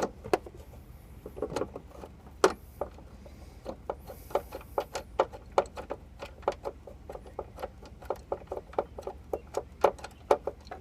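Hand ratchet clicking in quick repeated strokes, about two to three sharp metallic clicks a second, while a bolt of the Jeep Patriot's lower door hinge is backed out. The clicks come unevenly at first and fall into a steady rhythm about halfway through.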